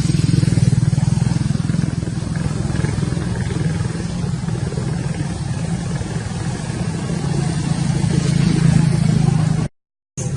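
An engine running steadily with a low, even hum. It cuts out abruptly for about half a second near the end.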